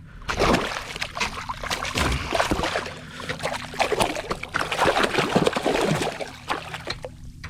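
Water splashing and sloshing close by, a dense run of irregular sharp splashes, with the angler getting wet.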